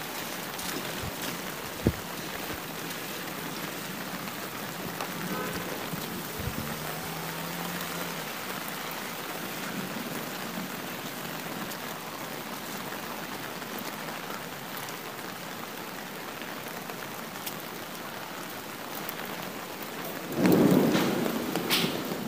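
Steady rain falling, with a loud roll of thunder near the end that swells and then fades.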